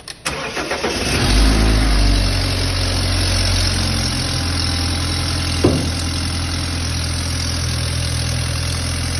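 BMW 320 engine starting, flaring briefly, then settling into a steady idle with a loud racket from burnt exhaust manifold gaskets leaking, a noise that passes for an internal engine problem. A single short knock comes a little past halfway.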